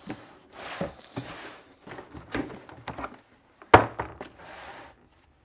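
A cardboard boot box being opened on a wooden workbench: the lid and flaps scrape and tissue paper rustles in short bursts. One sharp knock, the loudest sound, comes about two-thirds of the way through.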